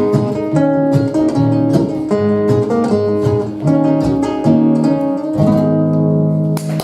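Acoustic guitar playing the instrumental close of a song, a run of plucked notes and chords that ends on a held final chord near the end.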